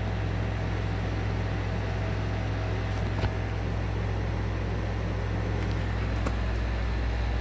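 A steady low mechanical hum, with a single light knock about three seconds in.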